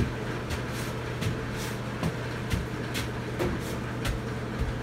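Heavy rain making a steady rush on a workshop roof over a constant low hum, with irregular sharp clicks and taps scattered through it.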